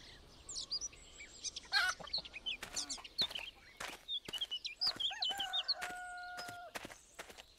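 Farmyard sounds: small birds chirping and chickens clucking, with a rooster crowing one long held note in the second half. Sharp ticks come in among the calls.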